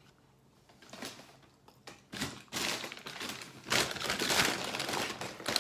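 McDonald's paper takeaway bag rustling and crinkling as a hand rummages inside it. It starts about two and a half seconds in, after a few soft taps.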